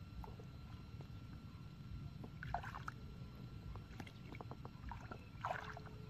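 Hands scooping and sloshing muddy water in a shallow pool, with two short splashes and a few light clicks.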